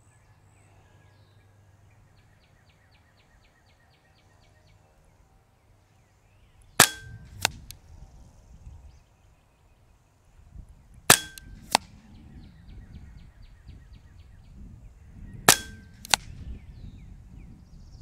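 Benjamin Marauder semi-automatic .22 regulated PCP air rifle firing three shots, about four seconds apart. Each sharp pop is followed about half a second later by a fainter second click.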